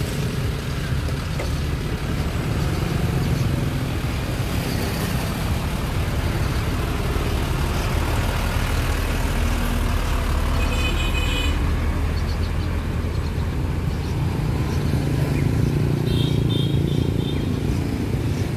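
A steady low engine rumble, like a vehicle running, with brief high chirps about eleven seconds in and again near the end.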